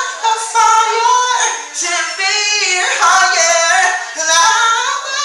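A man singing a cappella in a high voice, with long held notes that bend in pitch.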